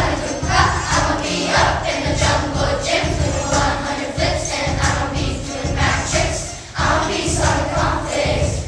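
A group of schoolchildren singing together over recorded backing music with a steady low beat, with a short drop in the sound about two-thirds of the way through.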